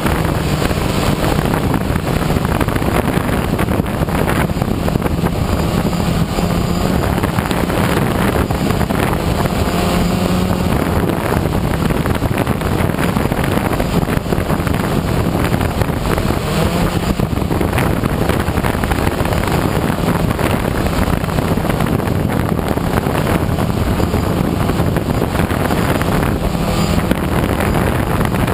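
DJI Phantom 1 quadcopter's four electric motors and propellers in flight, a loud steady buzzing hum heard through the GoPro camera mounted on it. The hum swells a little every few seconds as the drone adjusts its flight.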